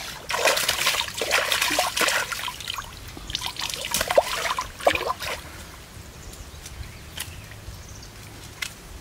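Water splashing and sloshing as a person wades through thigh-deep stream water, busy for the first five seconds or so, then dying down to a few small drips and ripples.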